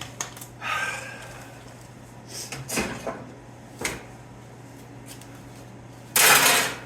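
Scattered clicks and knocks of objects being handled, with a short, loud rushing scrape near the end.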